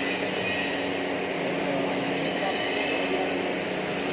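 Steady mechanical drone of running machinery: a constant hum under an even rushing noise, with no breaks or strikes.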